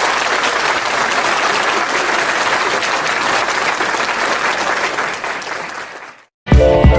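Applause, many hands clapping, fading out about six seconds in. Music with a beat starts right at the end.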